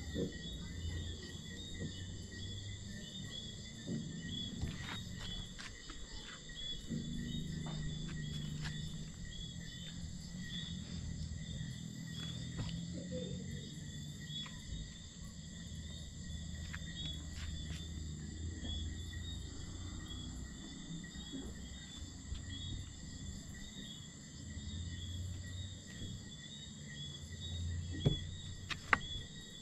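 Night chorus of crickets trilling steadily, with a low rumble underneath and a few sharp clicks, the loudest near the end.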